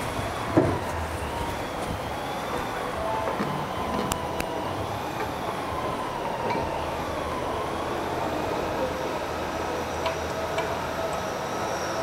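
A steady machine whine whose pitch slowly wavers up and down, with one sharp knock about half a second in and a few light clicks.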